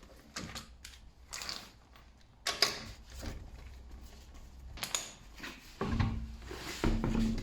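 Hand tools and metal car parts being handled: irregular clicks, knocks and clanks, the sharpest about two and a half seconds in and a cluster of heavier knocks near the end.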